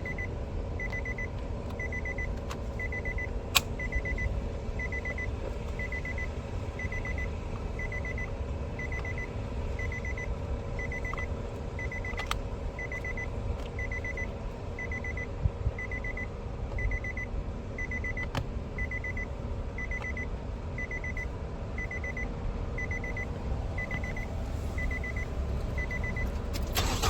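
Nissan Altima's dashboard warning chime beeping over and over at an even pace, about three short beeps every two seconds, with a few sharp clicks among them.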